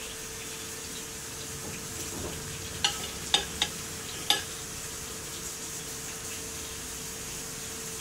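A metal wire grill rack set onto a microwave's glass turntable, clinking sharply four times over about a second and a half starting about three seconds in. Underneath runs the steady sizzle of chicken drumsticks frying in oil, with a faint low hum.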